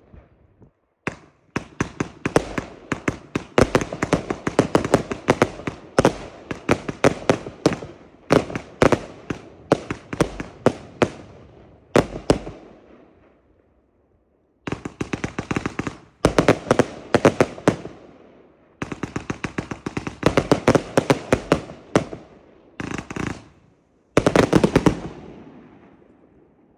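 A Pyrocentury "Gold Blauer Himmel" consumer fireworks compound firing rapid volleys of shots and bursting shells in several salvos. A brief pause comes about halfway through, and the last salvo fades out near the end.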